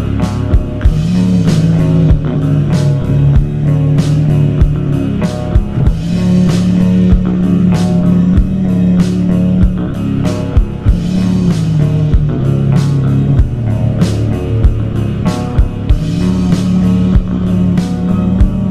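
Slowed-down, reverb-drenched rock recording: electric guitars, bass and drum kit playing, with a heavy bass line and steady drum hits.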